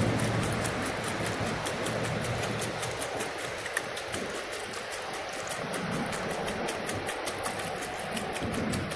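Lacquer thinner pouring from a one-gallon metal can through a plastic funnel into a car's fuel filler neck: a steady splashing stream, with a quick, regular glugging as air bubbles back into the can.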